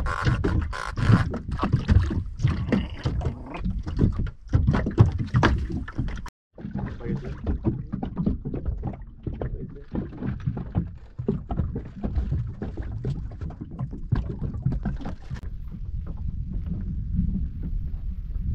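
Water slapping against the hull of a small fishing boat, with wind on the microphone and scattered knocks. The sound drops out briefly about six seconds in.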